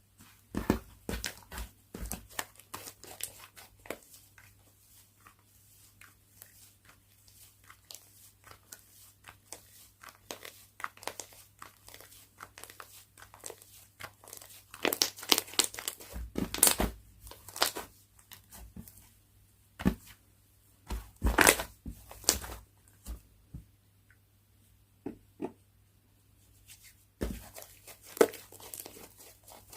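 Slime being squished, stretched and folded by hand: a run of sticky crackles and clicks, with louder clusters about halfway through and again a little later.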